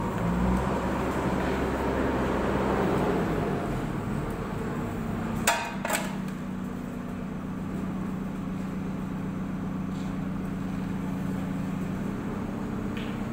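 Steady mechanical hum with a deeper rumble in the first few seconds, and two sharp metallic clinks about half a second apart a little over five seconds in.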